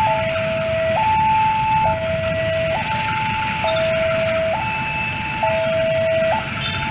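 Railway level-crossing warning alarm sounding a steady electronic two-tone hi-lo signal, each tone held a little under a second, warning that a train is approaching. A steady low rumble runs beneath it.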